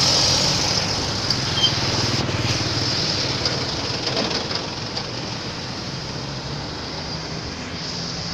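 Road traffic: a heavy vehicle's engine running with a low rumble that slowly fades away, over a steady hiss of road noise.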